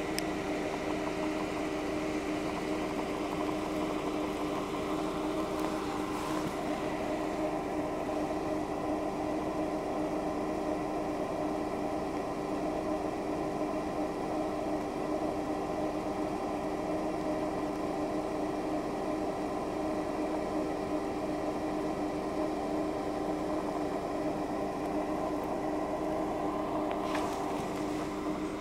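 Steady machine hum made of several fixed tones, unchanging in level and pitch; a brief scrape about 27 seconds in.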